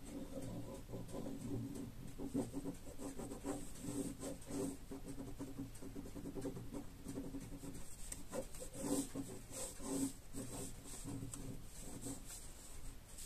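Pen nib scratching across paper in short drawing strokes, heard over a low hum that swells and fades.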